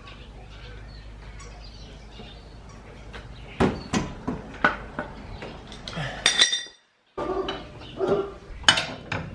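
Metal tools and parts clinking and clanking during hand work on a car's rear suspension. A few seconds of low steady hum come first, then a run of sharp clanks and knocks. A moment of dead silence breaks it about two-thirds of the way through.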